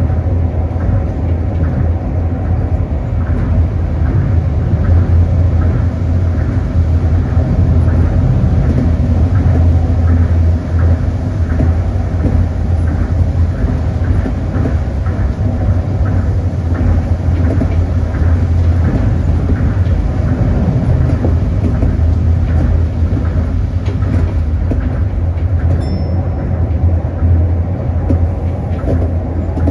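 Tokyo Monorail rubber-tyred straddle-beam train running along its line, heard from inside the front cab: a steady low drone with a faint regular ticking.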